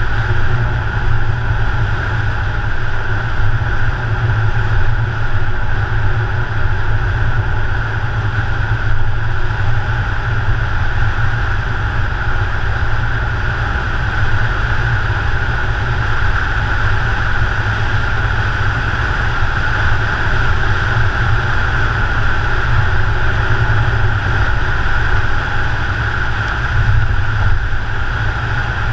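Car driving at a steady speed: continuous low rumble of tyres, engine and wind with a steady hiss above it, unchanging throughout.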